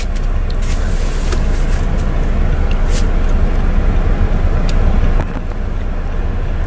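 Car engine and road rumble heard from inside the cabin, steady and low, with a few light clicks; the rumble eases slightly about five seconds in.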